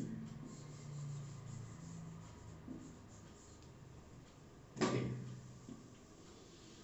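Faint rubbing and handling sounds, with one sharp knock a little before five seconds in.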